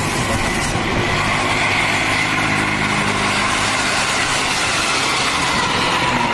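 Large bus engine running close by, a steady drone over street traffic noise.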